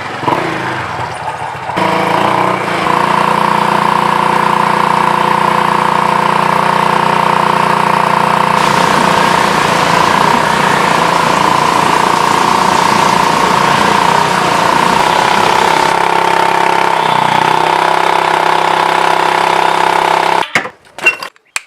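Gearless scooter's engine and belt-drive clutch running steadily, with the tick-tick noise that is put down to worn clutch-shoe lining dust and the face drive bearings. The sound cuts out abruptly near the end.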